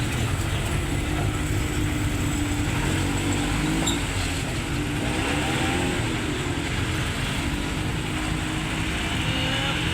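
Off-road 4x4 engine running over a steady low rumble, its revs rising and falling around the middle.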